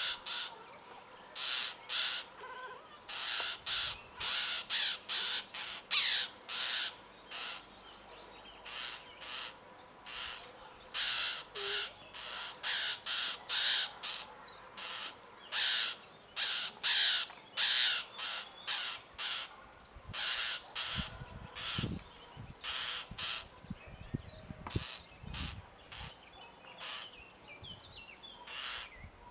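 Harsh, rasping calls of young birds begging inside a wooden nest box, repeated in quick series of about two a second with short pauses. The birds are taken for Eurasian blackbirds raising their young.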